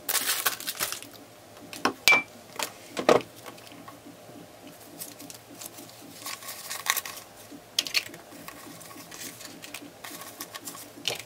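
Paper banknotes rustling and flicking as a stack of dollar bills is handled and sorted into a plastic cash tray, with a few sharp taps. The rustle is densest right at the start.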